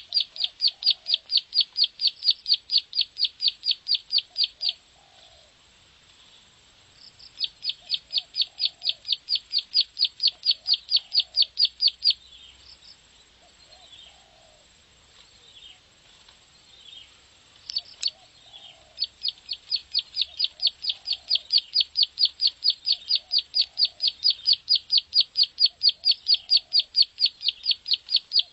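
Ciblek sawah (prenjak sawah), a small prinia, calling in long rapid runs of sharp, high clicking notes, about four to five a second, the fast 'ngebren' trill used as a masteran. It gives three runs, broken by pauses of a few seconds that hold softer scattered chirps.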